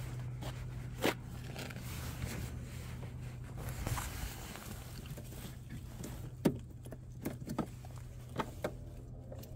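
Footsteps and handling noises at a van's open driver's door: a few scattered clicks and knocks, the sharpest about six and a half seconds in, over a steady low hum.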